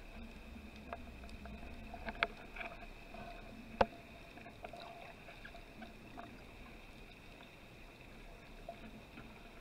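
Underwater ambience: a faint steady hiss with scattered sharp clicks, the loudest about two and four seconds in.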